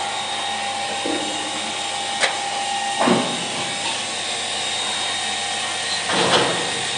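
Electric household water pump running steadily with a motor whine. A sharp click comes about two seconds in, and short knocks and rustles come around three and six seconds in.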